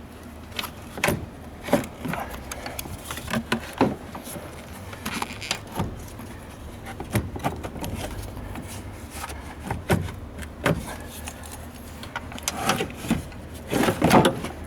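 Irregular metallic clinks and knocks of hand tools and parts being handled during a car battery change, over a steady low hum.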